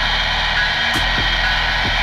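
HO-scale model diesel locomotive running along its track, heard close up: a steady electric whir with a soft knock about once a second.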